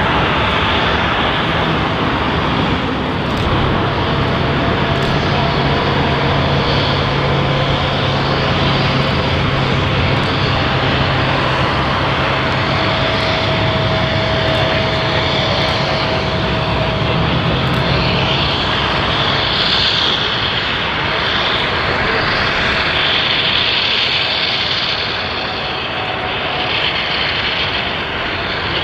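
Boeing 777 jet engines running loud and steady at close range, a dense rushing noise with a low hum underneath that fades out past the middle.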